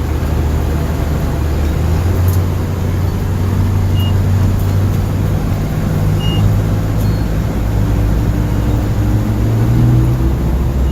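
M1009 CUCV Chevy Blazer's 6.2-litre V8 diesel and drivetrain running steadily under way in four-wheel drive on a snowy road. The engine note climbs a little near the end.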